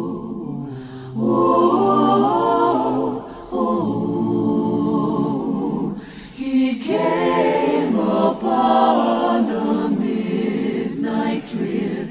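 A choir singing in harmony, in sung phrases with short breaks between them.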